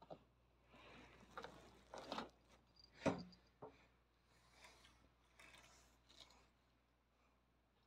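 Quiet rustling and scuffing, with one sharp knock about three seconds in and a smaller click just after; otherwise near silence.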